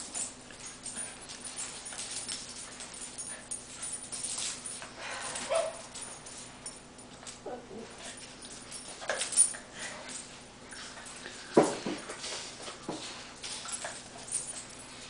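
A Basenji and a Cavalier King Charles spaniel play-fighting on a tile floor: scattered short whines and yips, the loudest about three-quarters of the way through, over the scuffling of paws on tile.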